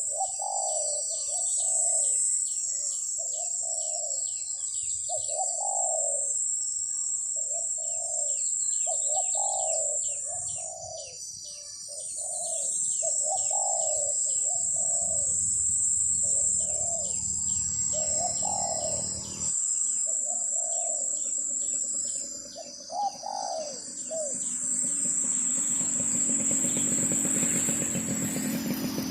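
Wild doves cooing over and over in low, repeated notes, with a steady high insect drone and faster ticking calls behind them. A rising rumble builds near the end.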